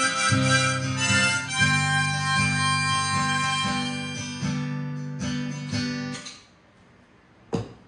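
Harmonica and strummed acoustic guitar playing the last bars of a song together, the final chord dying away about six seconds in. Near the end comes a single sharp knock.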